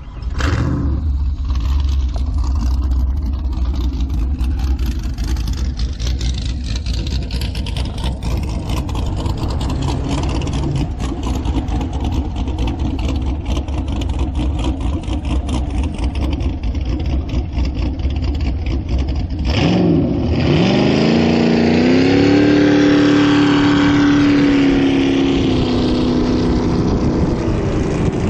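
Turbocharged LS V8 jet boat engine running, a low rumble under wind noise on the microphone; about two-thirds through the sound changes abruptly and the engine revs up to a strong, held high note, easing off slightly near the end.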